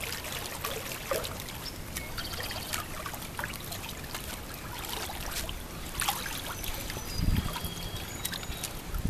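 Pool water splashing and lapping in small irregular splashes as a baby is held and moved in the shallow water. A brief low thump about seven seconds in.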